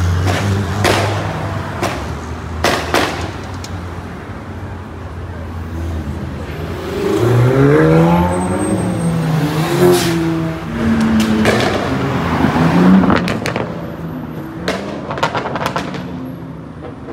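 Cars leaving a car meet under hard acceleration, engines revving. One engine's pitch climbs and then falls about seven to ten seconds in, and several sharp cracks stand out along the way.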